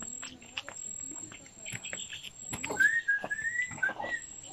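A clear, high whistle of a few connected notes, lasting over a second, beginning a little past halfway, over the light slapping clicks of flip-flop footsteps on a dirt yard.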